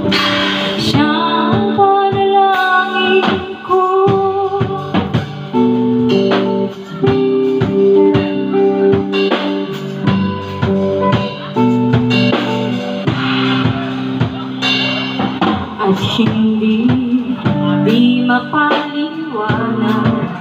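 Small live band playing a song: drum kit and electric guitar, with a woman singing at times.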